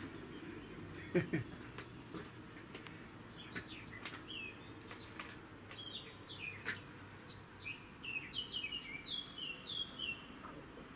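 Small birds chirping: a run of short, high, falling chirps that grows busier in the second half. A brief low sound comes about a second in.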